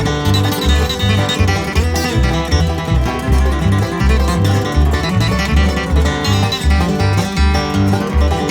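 Instrumental bluegrass: banjo and flatpicked acoustic guitar playing fast picked lines over a bass that plucks steadily, about two notes a second.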